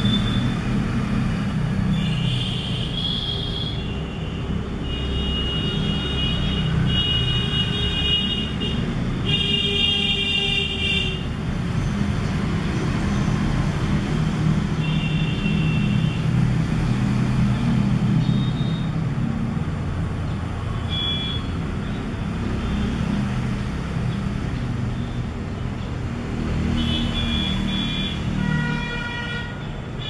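Steady road-traffic rumble, with short high-pitched vehicle horn toots several times over it.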